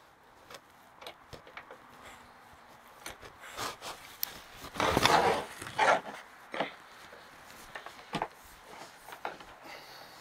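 A propane hose rubbing and scraping as it is pushed through a hole in a wooden floor, with scattered knocks and clicks and one longer scrape about five seconds in.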